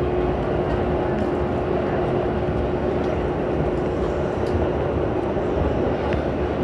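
Subway train running through a tunnel, heard from inside the car: a steady rumble of wheels on rails with a steady whine over it and a few faint clicks.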